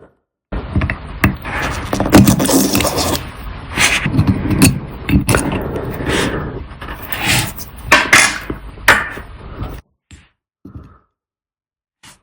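Metal tools scraping and clicking against a watch with many sharp knocks, stopping abruptly just before the last two seconds, which hold only a couple of faint small clicks.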